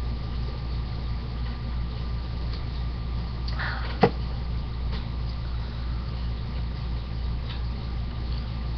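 Steady low mechanical hum, like a fan or motor running, with one short sharp click about four seconds in.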